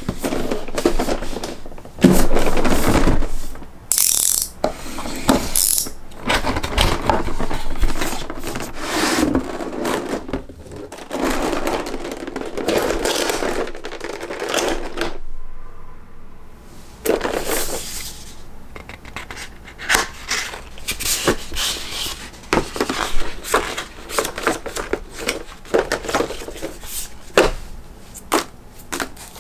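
Hands unpacking a boxed action figure: a cardboard box handled and opened, then clear plastic blister trays rustling and crinkling as they are lifted out, with many short plastic clicks and taps. There is a brief quiet pause about halfway through.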